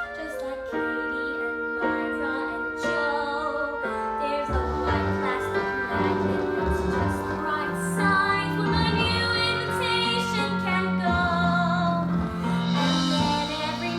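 A song sung with piano accompaniment, with a wavering sung line over held chords. Lower notes come in about four and a half seconds in and the sound grows fuller.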